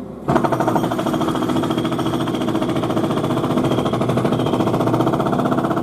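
A jackhammer from the building work, heard in a living room through the building's walls and floors, hammering rapidly and steadily. It starts about a third of a second in and stops near the end.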